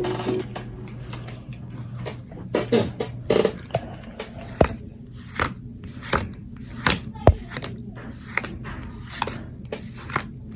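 A series of irregular light clicks and taps, a few short sounds early on, then single sharp clicks roughly every half second to second.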